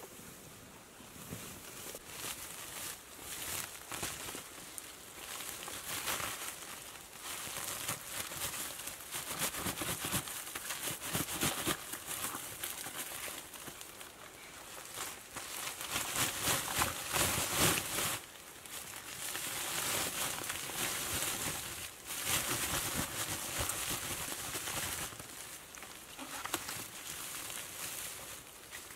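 Irregular rustling and crinkling of a woven plastic sack being handled as bamboo shoots are tipped into it from a bamboo basket, with dry fallen bamboo leaves rustling underfoot.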